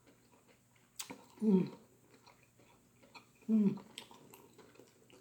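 A person chewing shrimp egg foo young close to the microphone, with faint wet mouth clicks throughout and a sharp click about a second in. Two short hums with falling pitch, about a second and a half and three and a half seconds in.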